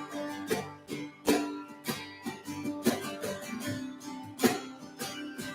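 Guitar strumming chords with held, ringing notes between strokes: the instrumental break of a worship song.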